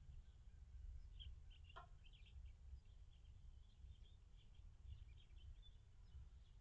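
Faint bird calls over a low rumble: many thin, high chirps and one short, stronger squawk about two seconds in.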